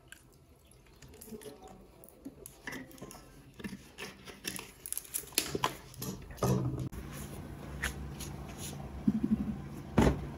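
Water poured from a plastic bottle onto garri in a bowl, with scattered small clicks and knocks. A single loud thump near the end.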